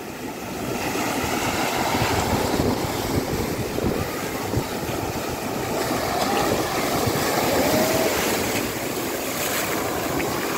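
Small shore waves breaking and washing up the beach, a steady surging wash that swells and eases, with wind buffeting the microphone.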